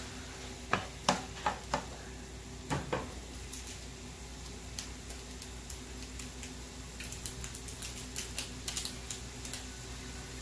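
Shrimp and cherry tomatoes frying in a nonstick pan: scattered crackles and pops of the sizzling food, a few sharper clicks in the first three seconds and a denser run of small crackles around seven to nine seconds in, over a low steady hum.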